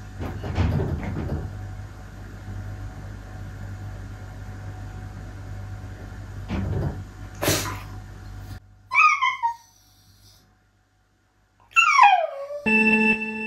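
Shiba Inu giving two short whines that fall in pitch, about two thirds of the way in and again near the end, over a low steady hum. A steady electronic tone starts just before the end.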